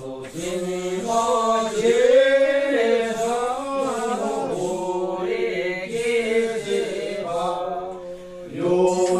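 Several voices chanting together in a slow melodic line, holding notes that rise and fall, with a brief pause near the end before they carry on.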